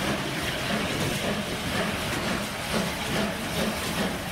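Czech steam locomotive 477 043 approaching slowly, with a steady hiss of steam escaping low around its cylinders and a faint low beat about twice a second.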